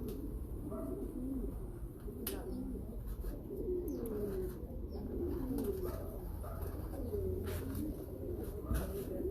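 Many pigeons cooing together, their low calls overlapping continuously, with scattered sharp clicks and knocks.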